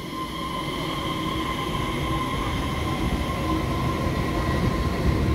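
Taiwan Railway EMU3000 electric multiple unit rolling past along the platform: a low rumble of wheels on rail with a steady whine on top, slowly growing louder.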